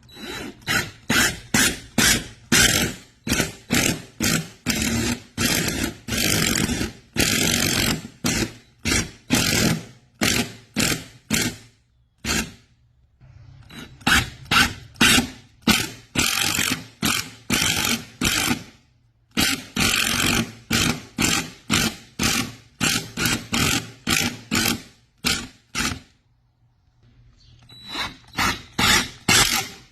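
Rhythmic back-and-forth scraping strokes of a hand tool working wood, about two to three strokes a second, in runs broken by short pauses.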